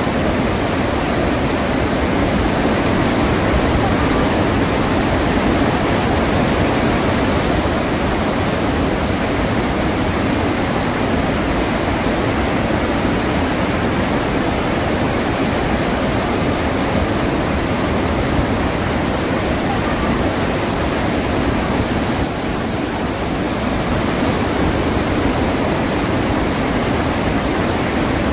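Iguazu Falls, a massive waterfall, pouring into its gorge: a loud, steady rush of falling water with no let-up.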